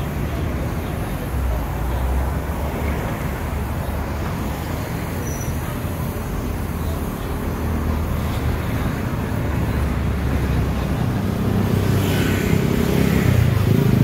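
Steady road traffic noise with a low rumble, passing along the street beside an open-air eatery.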